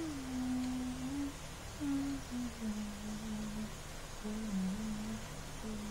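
A person humming a slow tune, holding each note for about a second with small slides between them, over a faint steady low drone.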